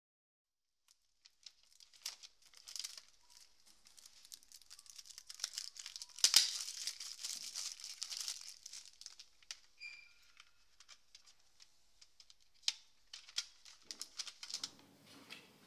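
Clear cellophane wrapping being torn and peeled off plastic CD jewel cases, with irregular crackling and crinkling and sharp clicks of the hard plastic cases being handled. The loudest is a snap about six seconds in.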